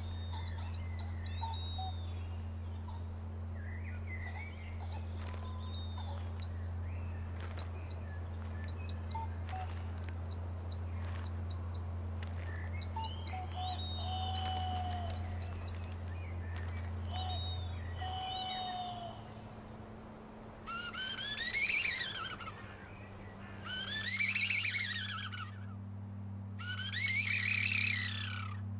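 Bird-call chirps and short whistles over a low steady drone. From about twenty seconds in, a hand-turned wooden bird whistle is blown in three loud warbling calls, each rising and then falling over about two seconds.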